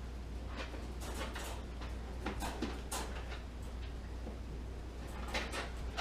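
Bars of soap being handled: a few short soft scrapes and taps, loudest about five and a half seconds in, over a steady low hum.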